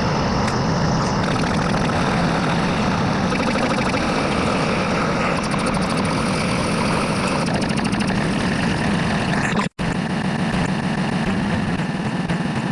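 Loud, dense sound effects with a steady engine-like rumble, cut by a brief dropout to silence near the end.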